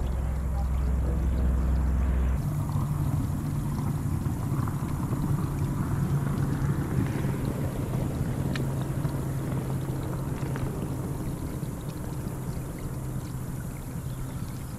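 Electric trolling motor at the bow of a bass boat humming steadily. About two seconds in its pitch steps up as the motor speed is raised, over a constant wash of water moving against the hull.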